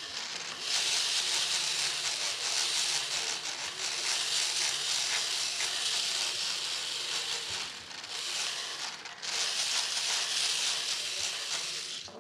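Motorized equine dental float with a small carbide ball burr grinding a horse's molar to round off the bit seat. It makes a steady, high, hissing grind that lets up briefly a couple of times.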